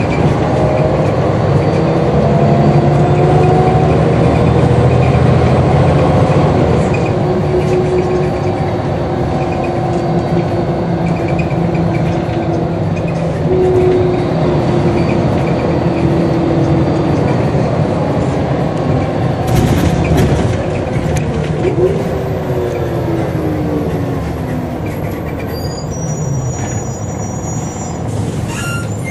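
Scania L94UB bus heard from the passenger saloon while under way: diesel engine running with the whine of its ZF automatic gearbox, several tones rising and shifting with road speed. In the last third the bus slows and the gearbox whine falls in pitch as it pulls up at a stop, with a brief hiss about two-thirds through.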